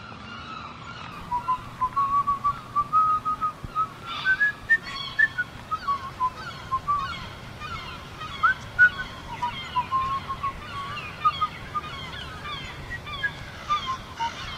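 A person whistling a tune, note by note, over a low steady background, with short bird chirps joining in from about midway.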